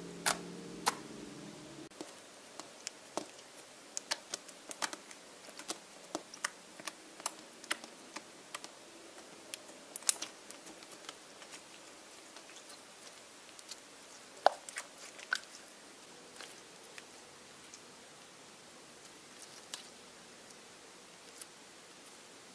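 Clear slime being squeezed, poked and stretched by hand, giving irregular wet clicks and pops from trapped air. The pops come thick through the first half and thin out later.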